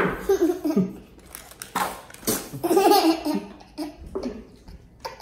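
A plastic sauce squeeze bottle sputters out a fart-like noise at the start, then a young boy laughs in repeated bursts.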